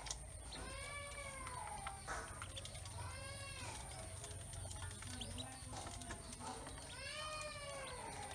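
An animal calling: three long drawn-out cries, each rising and then falling in pitch, about a second in, about three seconds in and about seven seconds in, with faint light ticks between them.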